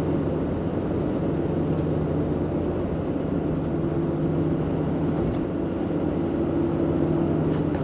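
Steady engine hum and road noise of a vehicle driving at a constant speed.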